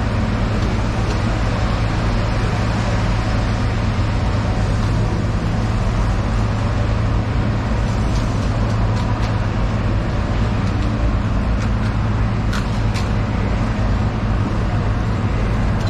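Steady low mechanical hum over a constant background rumble, with a couple of faint sharp ticks near the end.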